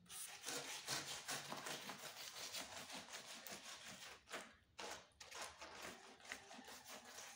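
Fast, repeated scraping and rubbing of a stick worked over freshly poured cement mix in a styrofoam brick mold, with short breaks about four and five seconds in.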